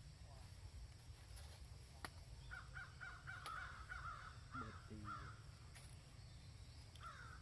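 Faint series of short, rapidly repeated animal calls, over a steady low hum.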